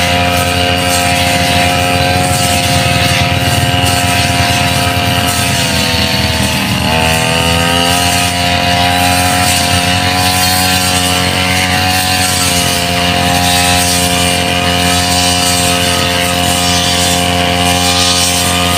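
Backpack brush cutter's small petrol engine running at high speed as the cutting head sweeps through tall grass, a steady buzz. Its pitch dips briefly about seven seconds in, then comes back up.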